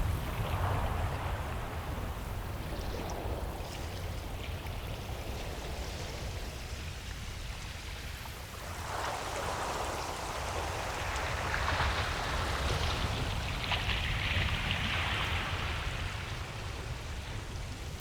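Ocean surf on a beach: a steady hiss of water over a low rumble, with one wave swelling about halfway through and washing out toward the end.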